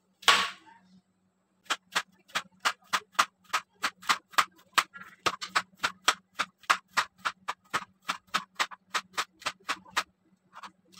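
Kitchen knife slicing a bitter gourd thinly on a cutting board: quick, even chops against the board, about three to four a second, after one sharp knock just before. A faint steady hum runs underneath.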